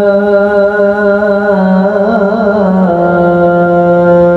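A male imam chanting Quran recitation in long, melodic held notes with a slight waver; the pitch steps down to a lower note about three seconds in.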